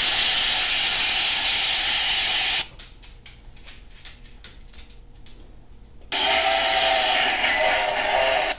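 Two long bursts of loud hissing, each about two and a half seconds, the second with a faint tone running through it; light clicking in the quieter gap between them.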